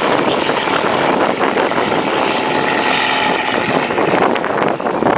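Light helicopter's rotor and engine running loud and close as it lifts off low and flies away, the rotor beating rapidly. The sound dips slightly near the end.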